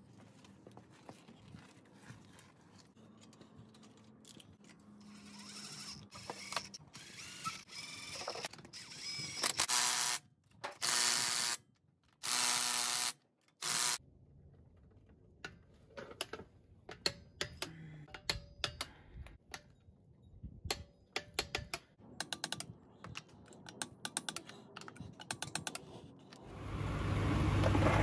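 A cordless power tool runs in four short bursts, spinning the wheel's lug nuts on. A long ratchet or torque wrench then clicks over and over as the nuts are tightened. Near the end the truck starts driving and its road and engine noise swells.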